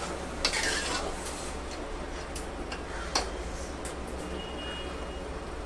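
A few scattered light clicks and knocks of a metal spoon against the cooking pot, over a steady low hum. A brief faint high tone sounds about four seconds in.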